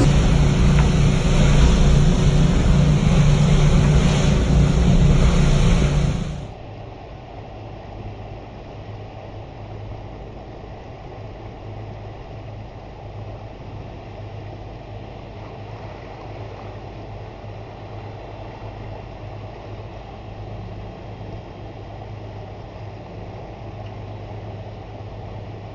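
Boat engine running under way, with wind on the microphone. About six seconds in the sound cuts abruptly to a quieter, steady low engine hum.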